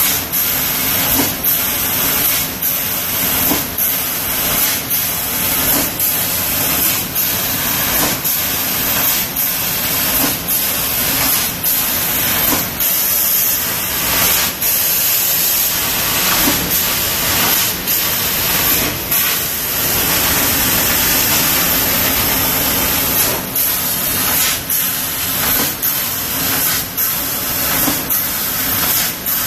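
Metal laser cutter cutting 2 mm aluminium sheet: a loud steady hiss of the cutting head's gas jet, broken by short dips every second or so as the head moves between cuts, with a low steady hum underneath.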